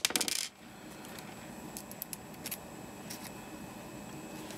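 A short clatter of small parts being handled at the start, then quiet room hiss with a few faint clicks.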